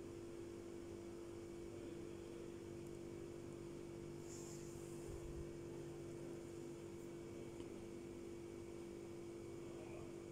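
Faint steady electrical hum holding one constant tone, with a brief faint rustle about four and a half seconds in.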